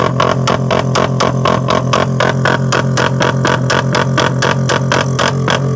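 Suzuki Raider 150 Fi motorcycle engine running with its ECU tuned for backfire: rapid, evenly spaced pops from the aftermarket exhaust, about five a second, over a steady engine note.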